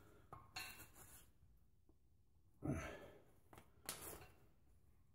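Near silence with faint handling sounds from tightening a threaded drain fitting by hand and wrench: a few soft rustles, a brief scrape about two and a half seconds in and a sharp click near four seconds.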